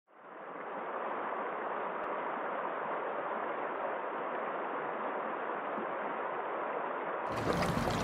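Mountain stream rushing over rocks and small cascades: a steady, even rush of water that fades in at the start. Music comes in near the end.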